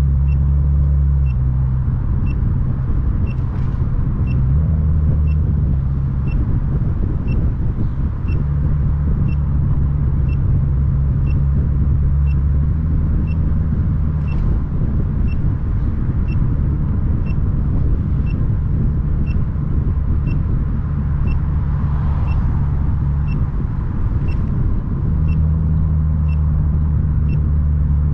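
A car driving, with a steady low engine and road rumble, and a short high-pitched beep repeating at an even pace of roughly one a second.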